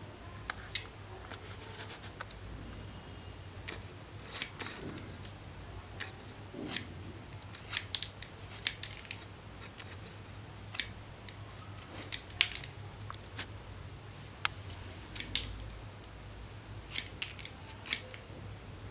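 A pencil being sharpened by hand with a cutting tool: irregular short, crisp clicks and snips as the edge bites into the wood, coming a few at a time, over a low steady hum.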